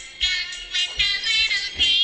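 A children's song: a high voice singing a simple melody over backing music with a light, regular beat.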